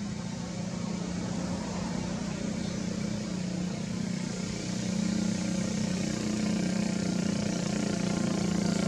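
An engine running steadily, slowly getting louder.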